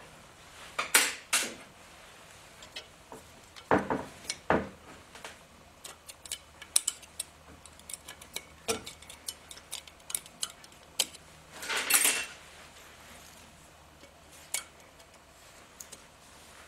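Light metal clicks, scrapes and clinks of a pick and fingers working the valve keepers off an intake valve stem inside a valve spring compressor on a Willys F-head cylinder head. A few clinks are louder, the loudest a short cluster about twelve seconds in.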